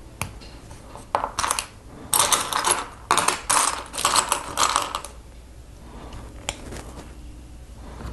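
Small plastic Lego pieces clattering and clicking as they are handled on a table, in several rattling bursts over the first five seconds, then one lone click.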